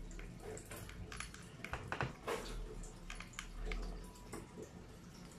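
A domestic cat eating chunky wet food in jelly from a plastic bowl: irregular wet smacking and chewing clicks, with a louder cluster about two seconds in.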